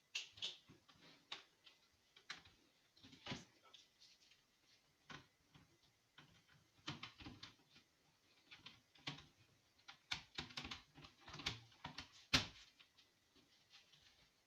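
Faint irregular clicks and taps of small hard objects being handled, a few close together at times, with a sharper click about twelve seconds in.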